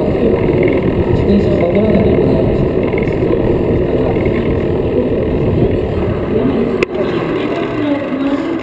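Steady wind rushing over the microphone of a camera on a moving mountain bike, mixed with the rolling noise of its tyres on the track, with one sharp click about seven seconds in.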